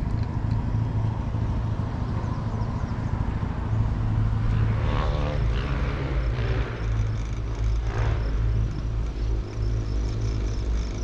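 Steady low rumble of a moving gondola cabin riding up its cable, heard with the microphone at the open window.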